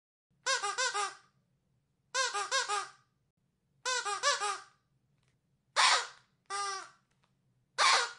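Squeaky dog toy being squeezed: three quick runs of four or five squeaks each, about a second and a half apart, then three single, separate squeaks near the end, each rising and falling in pitch.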